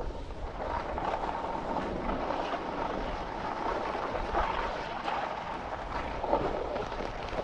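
Skis scraping and hissing over hard-packed snow and ice, with wind rumbling on the microphone.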